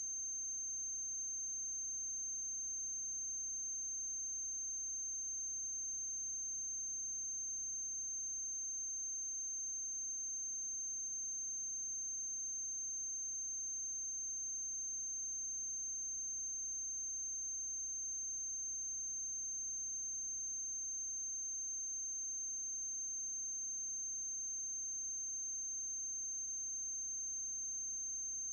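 Steady electrical hum with a constant high-pitched whine and no other sound: background noise of a transfer of a silent film.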